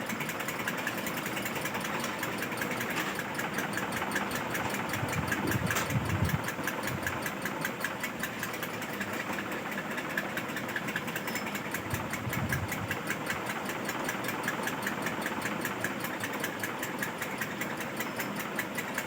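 A small motor running steadily with a fast, even pulse. There are two brief low rumbles, about six and twelve seconds in.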